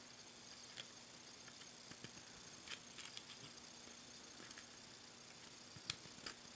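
Faint, scattered small clicks and scratches of fingers threading tiny Torx screws by hand into a laptop hard drive's metal sled, the sharpest click near the end, over near-silent room tone.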